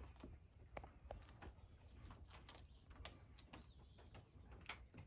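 Near silence: faint, irregular small clicks and ticks over a low rumble.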